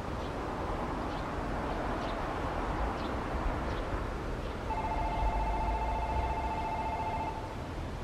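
An electronic two-note ringing tone sounds for about three seconds, starting a little past halfway, over steady outdoor noise.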